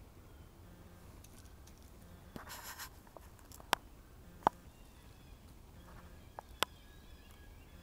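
Footsteps in dry forest leaf litter: a brief rustle and a few sharp snaps of twigs underfoot, over faint birdsong.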